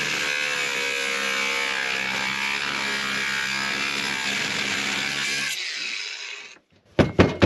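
Ryobi angle grinder cutting through stainless steel threaded bar, running at a steady pitch. It is switched off about five and a half seconds in and winds down over the next second. A few sharp knocks follow near the end.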